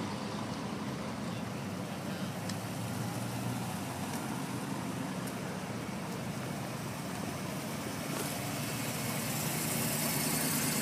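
Classic cars driving past one after another at slow parade pace, engines running steadily. The sound grows louder and hissier from about eight seconds in as a car comes close.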